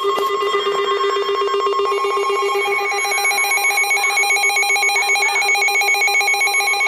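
Emergency Alert System warning alarm: a loud, rapidly pulsing electronic tone with several steady pitches. A further pitch joins about two seconds in.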